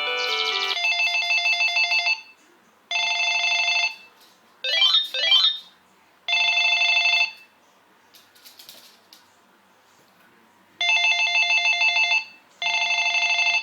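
Cordless phone ringer playing ringtones as they are set up. A short melodic tune ends just under a second in. Then comes a trilling electronic ring in five separate bursts of about a second each, with one burst of swooping rising and falling chirps about five seconds in.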